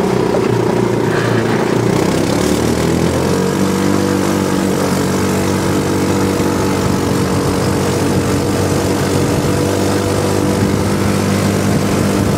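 Buggy's engine running under way, rising in pitch as it speeds up about two seconds in, then holding a steady speed.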